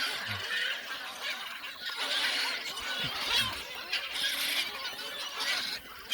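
A large flock of gulls calling all at once: a continuous clamour of overlapping squealing cries from birds crowding in to be fed.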